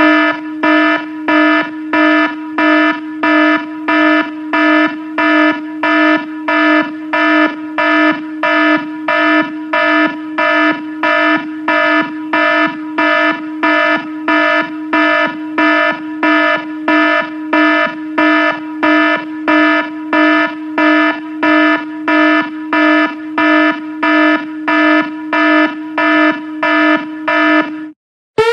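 Electronic alarm buzzer sounding in a steady on-off pulse, a little under two beeps a second, each beep a low, buzzy tone. It stops shortly before the end.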